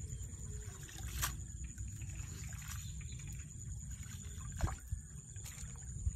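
Hands working mud and shallow water, with soft sloshing and two sharp knocks, one about a second in and one past the middle, over a steady low rumble.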